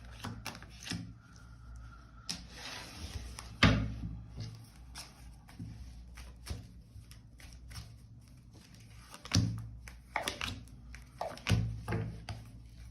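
Scattered knocks and thumps, the loudest about three and a half seconds in, over a low steady hum.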